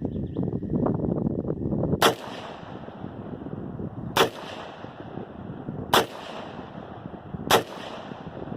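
Diamondback DB-15 AR-15 rifle with a ported compensator firing four single shots of 5.56 green-tip ammunition, about two seconds apart, during barrel break-in. A rustling noise fills the first two seconds before the first shot.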